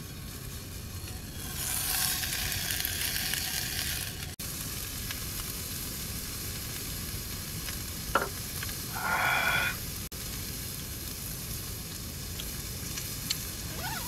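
Meat sizzling in a frying pan on a portable camp stove, louder for a couple of seconds near the start. A brief humming tone sounds about nine seconds in.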